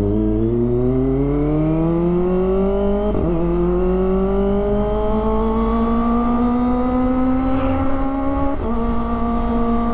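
Kawasaki ZX-25R's 250 cc inline-four accelerating hard, its pitch rising steadily through the revs. It upshifts twice, about three seconds in and again near the end, the pitch dropping at each shift before climbing again.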